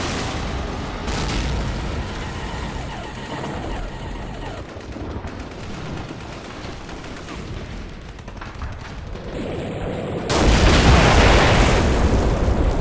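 Battle sound effects for an animated war scene: continuous gunfire and blasts, with one loud explosion about ten seconds in that lasts a couple of seconds.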